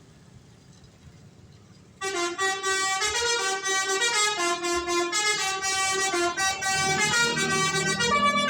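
Indonesian 'telolet' multi-tone bus horn playing a melody, starting suddenly about two seconds in, its notes changing pitch in quick steps. Before it there is only a faint low rumble.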